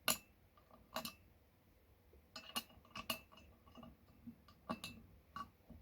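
Allen key clicking and clinking against a metal screw on a phone stand's adjustable joint as it is turned to tighten it; about a dozen sharp, irregularly spaced clicks.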